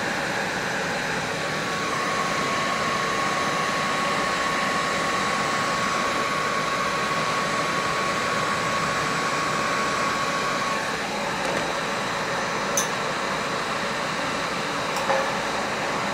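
Steady whirring air noise of a fan or blower, with a faint steady whine from about a second and a half in that stops around eleven seconds. Two small clicks come near the end.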